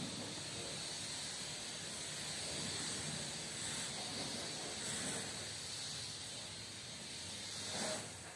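High-pressure washer jet spraying water onto the tarpaulin curtain side of a truck, a steady hiss.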